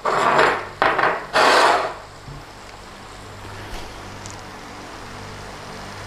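A stirring utensil scraping through the curry in the pan, three quick strokes in the first two seconds, then the pan cooking on with a low steady hum and hiss.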